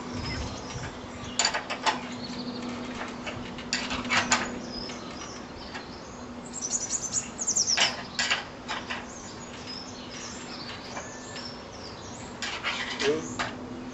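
Metal spanner clinking on the nuts of an awning's wall bracket as they are tightened, in about four short bursts of clicks, over a steady low hum.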